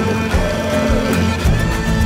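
Background music with a steady beat and sustained melodic tones.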